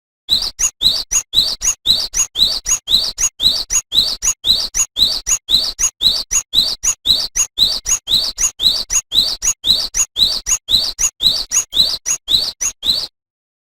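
Cinereous tit (gelatik batu) singing its 'tulit-tulit' song: a short note and a sharply rising whistle repeated about twice a second without a break. The song stops abruptly near the end.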